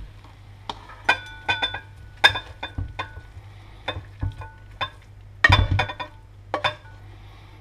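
Serving utensil knocking and scraping against a porcelain bowl as noodles are dropped into it, each knock ringing briefly like a struck dish. The clinks come in small clusters, loudest about two seconds in and in a flurry past five seconds in, over a low steady hum.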